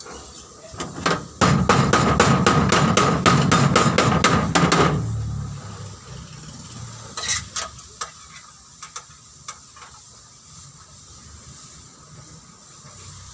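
Rapid, loud strikes on metal for about three and a half seconds, typical of hammering during car body panel repair. A couple of separate sharp knocks and a few faint ticks follow.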